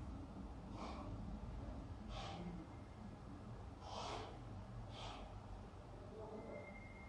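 A person breathing out sharply through the nose or mouth close to the microphone, four short breaths over a low steady hum, the third the loudest.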